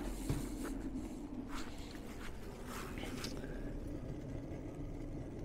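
Ooni Koda 12 gas pizza oven's burner running at full power, a steady low rumble, with a few faint rustles in the first three seconds.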